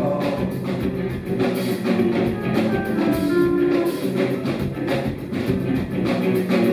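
A live band playing an instrumental stretch of a rock song, with a steady drum beat under sustained pitched notes and no singing.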